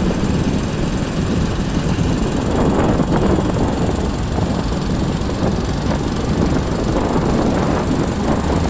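Motorcycle engine running steadily while riding along a road, with wind rushing over the microphone.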